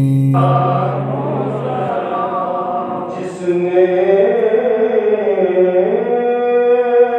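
Chanted Quranic recitation: one voice draws out a long melodic phrase that slowly rises and falls in pitch, with a wavering ornament on the held notes.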